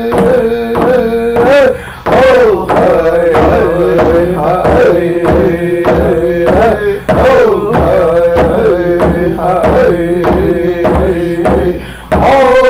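A song sung by male voices in long, held, wavering phrases over a steady drum beat, breaking off briefly between phrases.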